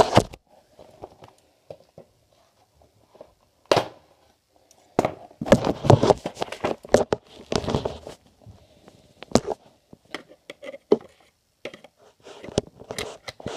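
Packaging being handled and opened: scattered knocks and clicks, with a busy stretch of crinkling and rustling in the middle.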